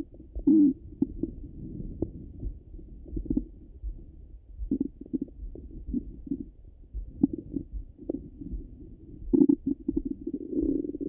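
Bowel sounds of a full stomach heard through a stethoscope: irregular gurgles and squelches at a low pitch, with brief quiet gaps between them. The loudest gurgles come about nine and a half seconds in and again near the end.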